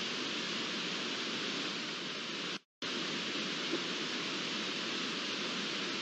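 Steady, even hiss from an outdoor webcam's microphone, with a brief dropout to silence about two and a half seconds in where the feed cuts between cameras.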